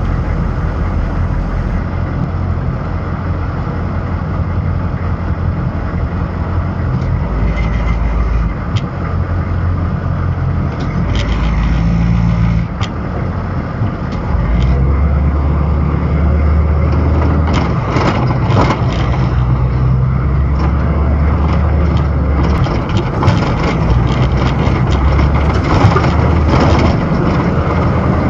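Humvee's diesel V8 engine running as the truck drives, its low rumble changing level in steps, with scattered knocks and rattles in the second half.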